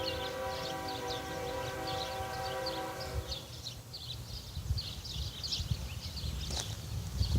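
Air horn of a GE ES45AH locomotive sounding a steady multi-note chord during a horn show. The horn cuts off about three and a half seconds in, leaving the low rumble of the passing train.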